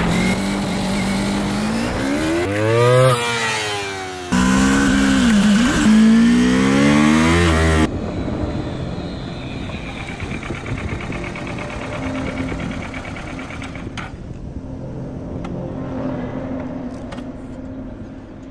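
Kawasaki motorcycle engine revving, its pitch climbing and falling several times. After a cut about eight seconds in, it runs steadily at low revs.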